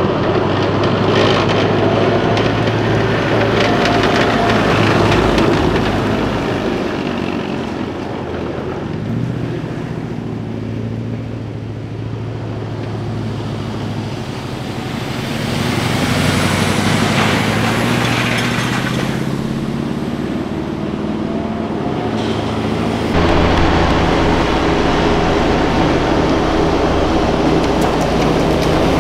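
Diesel engines and tyres of heavy military vehicles driving past in a convoy: a wheeled Piranha 5 armored vehicle, then trucks and a light utility vehicle, and, from about two-thirds of the way in, a heavier low rumble as a MAN 8x8 truck drives up and passes. The engines drone steadily throughout, their pitch shifting from vehicle to vehicle.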